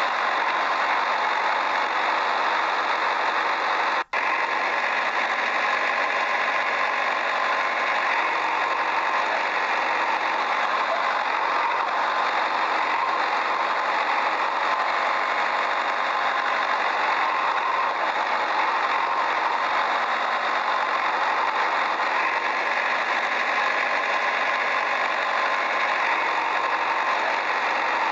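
Steady engine running sound, even and unchanging, with a brief break about four seconds in.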